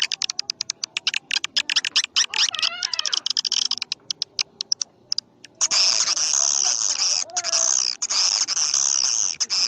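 Swiftlet calls, as used to lure birds to a swiftlet house: rapid trains of sharp clicks, then from about halfway a continuous high, buzzy chattering twitter that breaks off briefly once.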